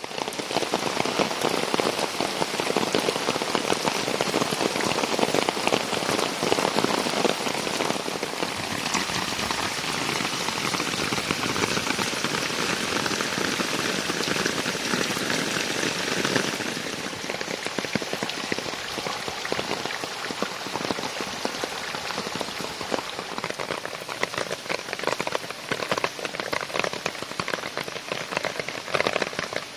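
Rain falling steadily, a dense spray of countless drops with no pause. About sixteen seconds in, the sound changes and turns a little quieter.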